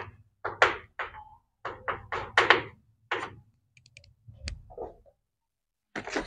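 Chalk writing on a blackboard: a quick run of short scratchy strokes and taps over the first three seconds, then a single sharp click a little past the middle, and more strokes near the end.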